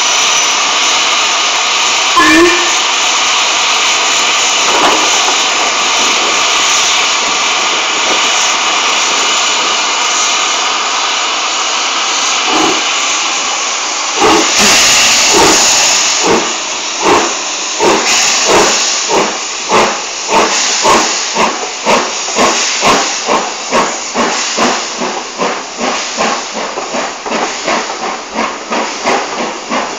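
Steam locomotive 44837, an LMS Black Five, starting away with its train: a loud steady hiss of steam, then exhaust chuffs that begin slowly about twelve seconds in and quicken steadily to about three a second. A short sharp sound stands out about two seconds in.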